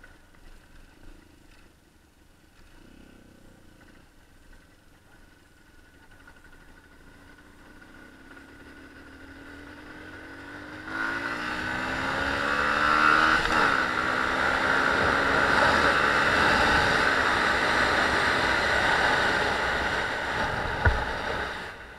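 A small motorcycle engine is heard faintly at first and grows louder as it approaches. From about halfway it is loud and close, its pitch rising and falling as it revs, with a rushing noise over it. It stops abruptly just before the end.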